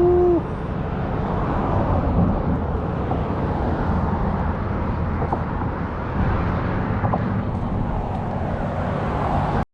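Steady outdoor rumble and hiss with no clear single source, opening with a brief pitched tone and cut off abruptly at the end.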